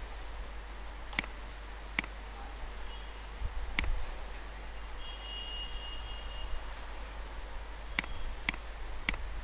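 About six sharp, separate computer mouse clicks, spread unevenly, over a steady low hum and faint room hiss.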